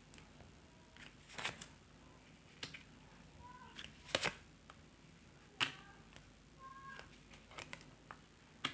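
Tarot cards being handled and laid down: a scattered series of light snaps and taps, about a dozen, with a few faint short squeaks between them.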